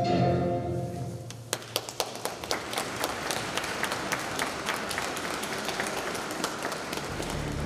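A held musical chord dies away in the first second, then an audience applauds, a few scattered claps at first that thicken into steady clapping. Near the end new music starts.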